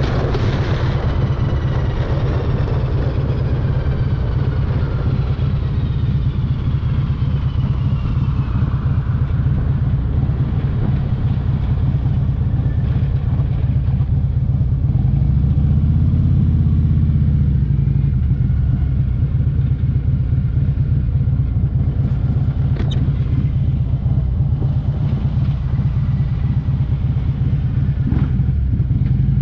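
Motorcycle engine rumbling at low speed heard from the rider's seat, with wind noise and a falling whine over the first several seconds as the bike slows. The rumble swells briefly about halfway through, and there is a single click later on.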